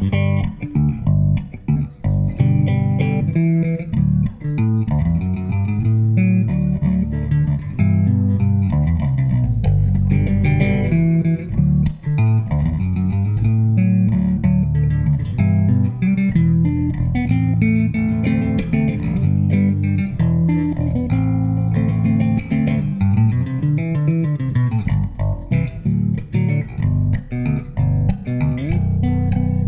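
Six-string electric bass, an Ibanez SR1306, played solo fingerstyle in a carranga tune, with several notes sounding at once over a running bass line.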